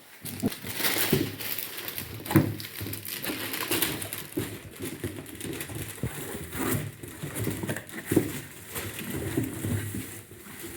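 Irregular rustling and light knocks of cardboard and plastic packaging being handled and torn open, as a newly bought circular saw is unpacked at a counter.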